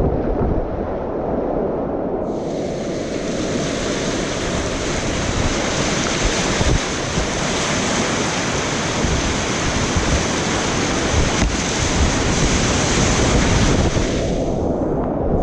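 Rushing whitewater of a river heard from a kayak, a loud, steady roar with wind buffeting the microphone. The sound is muffled at first, opens up bright about two seconds in, and turns muffled again near the end.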